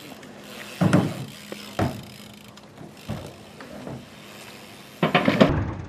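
BMX bike riding on skatepark ramps: a few sudden thuds and rattles of tyres and frame. The loudest come about a second in and near the end.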